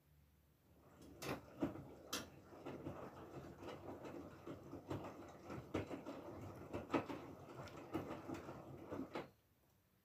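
Whirlpool FSCR90425 front-loading washing machine's drum turning through one wash tumble in a synthetics 40°C programme: wet laundry sloshing and dropping in the water, with frequent knocks and splashes. It starts about a second in and stops abruptly near the end as the drum comes to rest.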